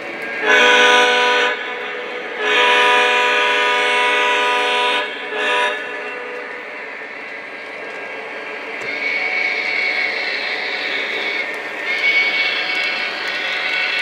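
Model train's electronic sound system blowing its whistle: two long blasts and one short. After that the train's running sound swells and continues.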